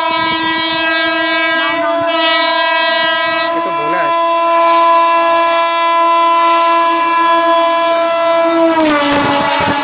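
Electric locomotive horn, an Indian Railways WAP-4, sounded in one long steady blast that drops in pitch about nine seconds in as the locomotive passes at speed, then the rush of the train going by.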